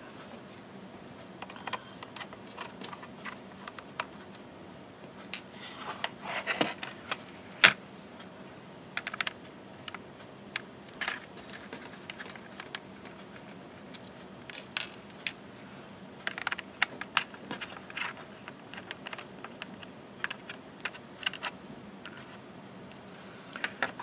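Scattered small metallic clicks and taps of a small screwdriver and screws as the screws are taken out of a slim optical drive and its bracket. The loudest is one sharp click about seven and a half seconds in.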